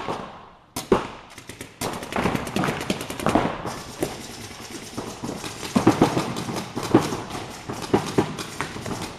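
Paintball markers firing reusable rubber reballs in rapid strings of sharp pops, with several players shooting at once. Louder volleys come about a second in and again past the middle.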